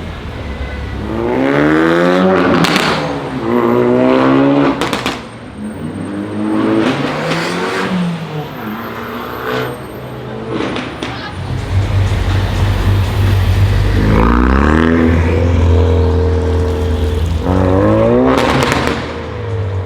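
Ford Focus RS with an AWE aftermarket exhaust revving up hard about five times, each pull rising in pitch, with sharp exhaust crackles and pops between the pulls. Through the middle stretch the engine settles to a steady low burble before revving again.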